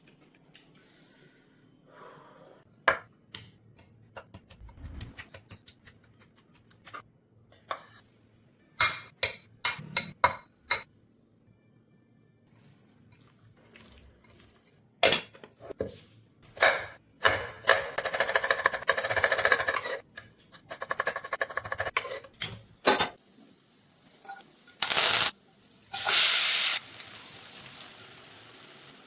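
Kitchen preparation sounds: a string of sharp clinks and knocks of utensils against bowls and pans, with two or three short stretches of running or poured water.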